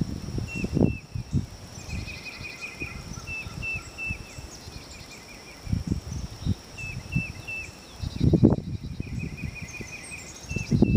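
Outdoor ambience: birds calling with repeated short chirps and quick trills, over a steady high insect-like tone, broken by low rumbling bumps on the microphone, the loudest about eight seconds in.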